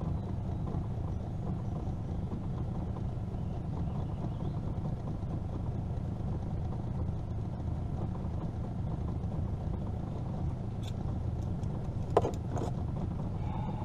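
A steady low rumble, with one sharp metallic clack about twelve seconds in as a lip-grip tool is clamped onto the flathead catfish's jaw.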